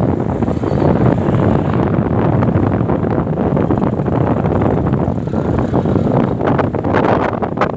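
Strong wind buffeting the microphone: a dense, steady rumbling rush with no clear tone in it.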